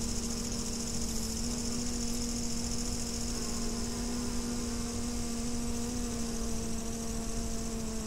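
A bee buzzing close by: a low, steady drone that stops at the very end. Behind it, grasshoppers chirp in a continuous high-pitched hiss, and wind rumbles low.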